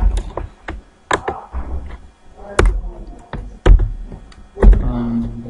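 Typing on a computer keyboard: a run of irregular keystroke clicks. A short steady low hum joins near the end.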